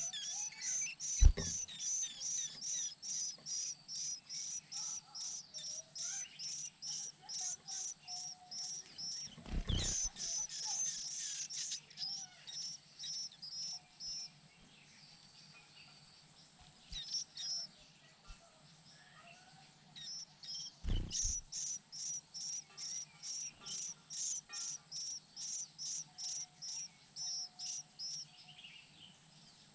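White-eye nestlings' high chirps, short and evenly repeated about two to three times a second, in two long runs with a pause in the middle, denser for a moment partway through the first run. A few dull thumps break in.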